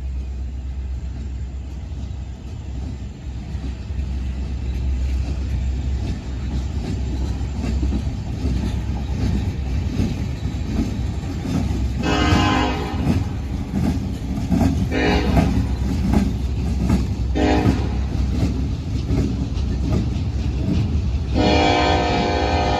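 Norfolk Southern diesel freight locomotive rumbling and growing louder as it approaches, its air horn sounding four blasts: one of about a second, two shorter ones, then a long one starting near the end.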